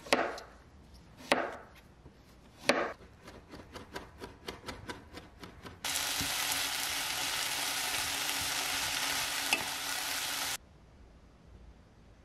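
Chef's knife slicing zucchini on a wooden cutting board: three hard chops, then a run of quick, lighter cuts. Then sliced zucchini, onion and red chilli sizzle in a frying pan as they are stirred, a steady hiss of about five seconds that cuts off suddenly.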